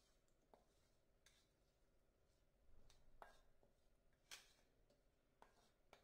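Faint scrapes and taps of a wooden spatula against a frying pan as cooked onion seasoning is pushed out into a bowl, a few separate knocks, the loudest about four seconds in.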